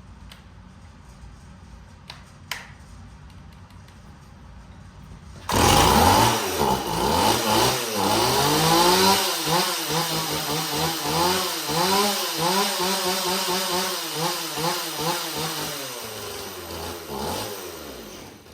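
Worn Stihl two-stroke chainsaw bursting into life about five seconds in and running unevenly, its engine speed surging up and down again and again, then stopping near the end. It runs poorly, which the owner puts down to a worn aftermarket cylinder and a carburettor that is probably not helping.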